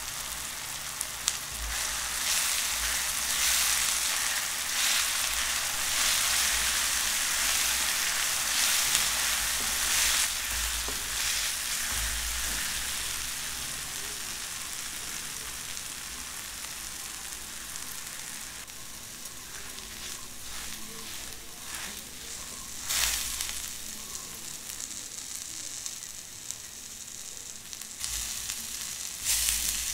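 Onion-tomato masala with red chilli paste sizzling in hot oil in a nonstick pan while it is stirred. The sizzle is strongest in the first third and then dies down, with a few clicks and knocks of the utensil against the pan in the second half.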